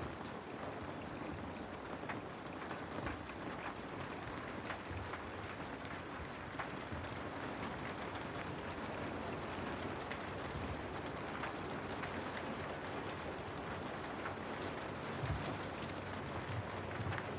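Steady rain falling on a window, a continuous hiss with scattered individual drop ticks.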